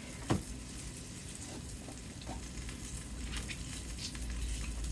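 Tofu frying in sesame oil in a skillet: a steady soft sizzle with scattered faint pops. There is a single sharp knock about a third of a second in.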